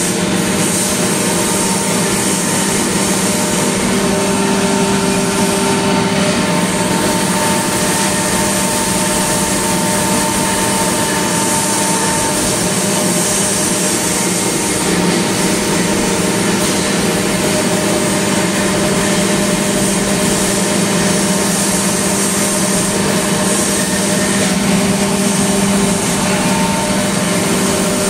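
Industrial air compressor running steadily: a constant machine hum with several held tones under a hiss.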